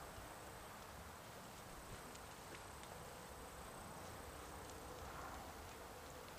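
Quiet outdoor ambience: a faint even hiss with a thin, steady high-pitched tone that stops about five seconds in, and a few faint ticks.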